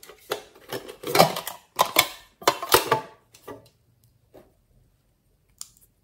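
A small metal tin box being handled and opened: a run of clicks and rattles for about three seconds, then a few soft clicks and one sharp tick near the end.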